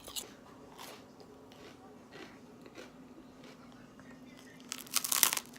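Someone biting and chewing crunchy snack food, likely chips, close to the microphone: faint crunches every half second or so, then a louder run of crunches near the end, over a faint steady hum.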